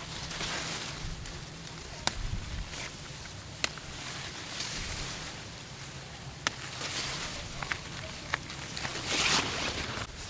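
Rustling with several sharp snaps spaced a second or more apart, and a louder burst of rustling near the end.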